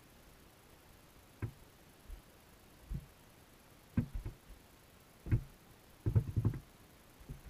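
Dull underwater knocks of fish bumping the GoPro's waterproof housing inside a wire minnow trap, heard from inside the housing. Single knocks come every second or so, then a quick run of several about six seconds in.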